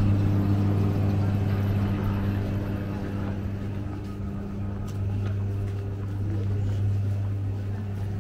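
A motor vehicle's engine running at a steady speed, a low, even hum that does not change pitch and fades slowly.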